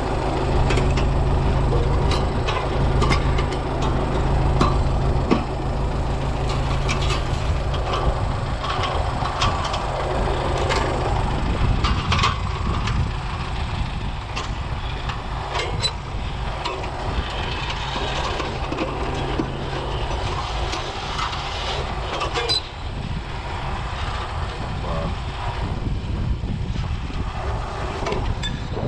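MTZ-82 Belarus tractor's four-cylinder diesel engine running steadily, heard from inside the cab, with frequent clicks and rattles from the cab and implements. The deep engine note eases somewhat about halfway through.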